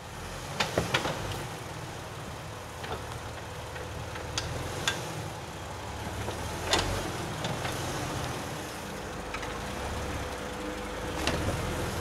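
Off-road Jeep engine running steadily, with scattered sharp knocks and clicks: three close together near the start and a loud one about seven seconds in.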